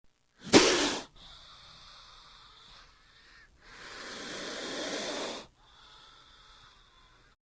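Cobra hissing: a short, loud, forceful hiss about half a second in, then a longer hiss about three and a half seconds in that swells for some two seconds and cuts off.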